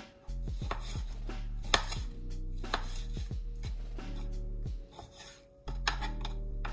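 Kitchen knife chopping raw chicken breast on a cutting board: irregular knocks of the blade through the meat onto the board, about three a second, with a short pause near the end.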